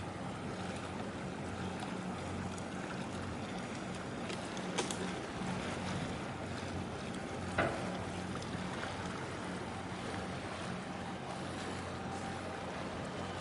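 Low, steady drone of a large container ship's machinery as it passes close by, over a wash of wind and sea noise. Two brief knocks cut through about five and seven and a half seconds in.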